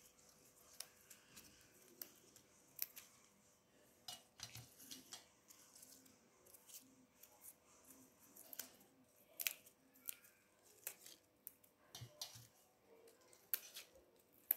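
Faint, irregular snapping and rustling of black nightshade leaves and flowers being picked off their stems by hand on a steel plate.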